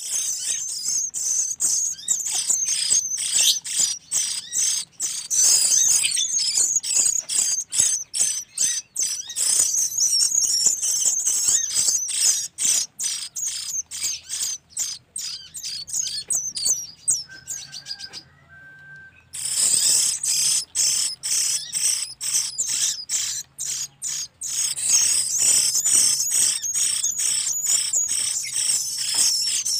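Velvet-fronted nuthatch nestlings begging for food with rapid, high-pitched chirping, pausing for about a second around two-thirds of the way in.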